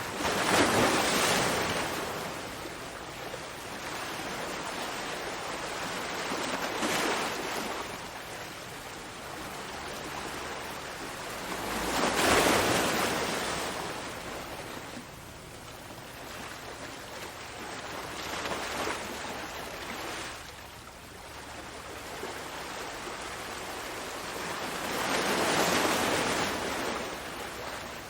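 Ocean waves breaking and washing ashore. The surf swells and fades in slow surges, with the biggest breakers about a second in, near the middle and near the end, and smaller ones in between.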